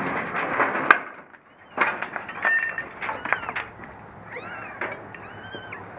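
Metal clatter and scraping of a dumpster being opened and searched, then from about four seconds in a string of high, thin mews that rise and fall: newborn kittens crying from inside the dumpster.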